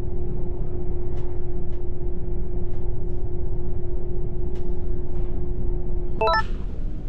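Steady low rumble of a large ferry under way at sea, with a constant hum running through it. A quick run of short chime-like tones comes near the end.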